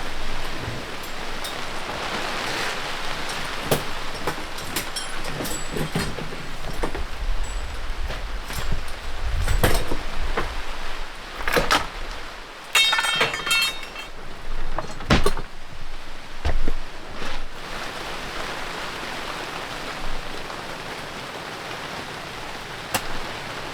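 Steady rain falling, with scattered knocks and taps throughout and a short buzzing rattle about halfway through.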